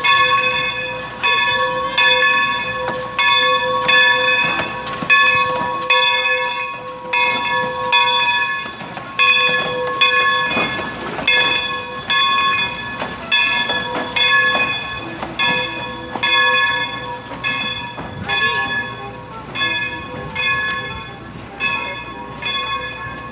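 Steam locomotive bell on Baldwin 2-8-0 #40 ringing steadily, about three strokes every two seconds, the warning rung while the engine moves in the station.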